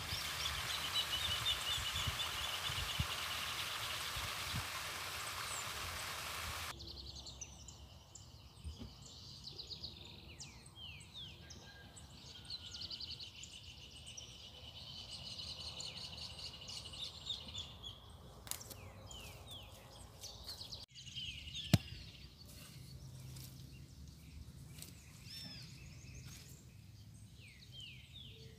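Open-air ambience with small birds chirping over and over. A hiss covers the first seven seconds or so and then cuts off abruptly, and a few sharp clicks stand out, the loudest about three-quarters of the way through.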